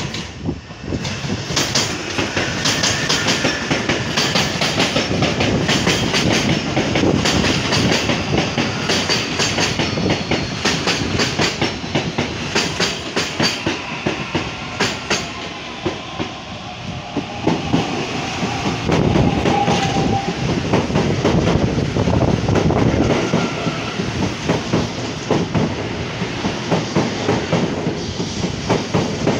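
CPTM electric commuter trains passing close by: loud running noise of steel wheels on the rails, with quick runs of clicks as the wheels cross the rail joints, and a faint gliding whine from the traction motors.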